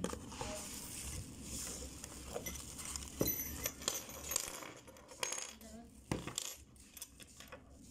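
Bubble wrap crinkling as it is handled, then small metal drill accessories (chuck key, air-hose fitting, drill bits) clinking and tapping onto a wooden tabletop several times.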